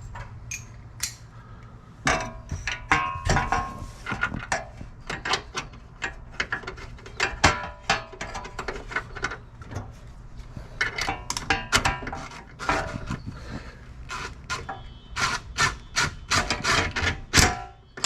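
Hand tools and small metal hardware clinking and knocking irregularly as a part is fitted and fastened under the headlight arm.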